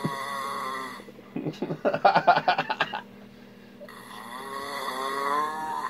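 A man snoring hard. A drawn-out snore is followed about a second in by a rapid fluttering rattle lasting a little under two seconds, then a long snore that rises in pitch near the end.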